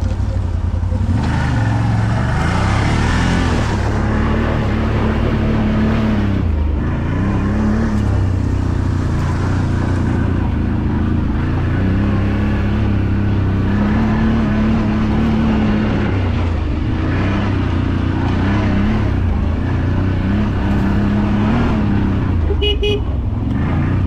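ATV engine running under way, its note rising and falling with the throttle and easing off briefly a few times.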